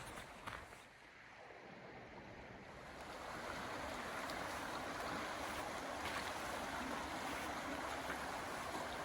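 A small creek's flowing water, a steady rush that grows louder over the first few seconds and then holds steady.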